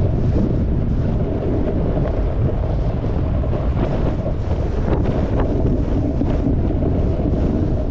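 Wind buffeting an action camera's microphone: a loud, steady low rumble with a few faint short scrapes above it.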